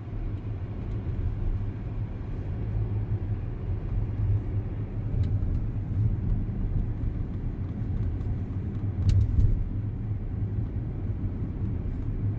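Steady low road rumble inside a moving Audi Q7's cabin, with a few faint ticks, about five seconds in and a short cluster near nine seconds. The ticks are the rattle from one corner of the closed sunroof.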